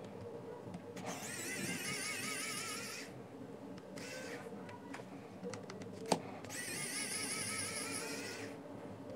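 Small motor of a cordless electric precision screwdriver whining in two runs of about two seconds each as it backs screws out of a plastic speaker housing, its pitch wavering under the changing load. There is a short burst between the runs and a sharp click just before the second one.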